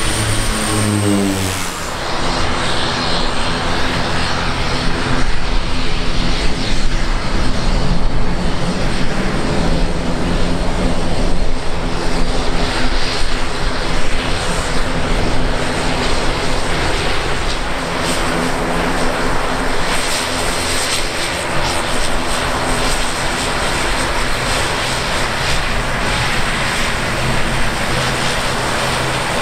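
ATR 72 twin-turboprop airliners taxiing, their engines and propellers running with a steady hum and several droning propeller tones. At the very start a DHC-6 Twin Otter passes low overhead, its pitch falling as it goes by.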